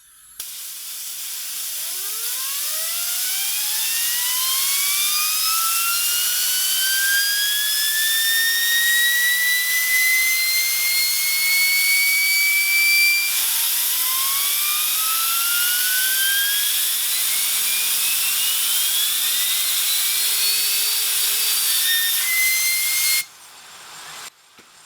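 Degreased, nested ball bearings of a homemade all-bearing fidget spinner spinning up fast: a whine rising steadily in pitch over a loud steady hiss. About halfway through it drops back to a low whine and climbs again, with shorter rising whines after, then it all stops abruptly near the end.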